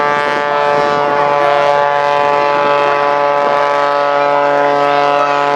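Oracle Challenger III aerobatic biplane's piston engine and propeller at high power, making a loud, steady drone whose pitch holds level as the plane hangs in a hover on its propeller.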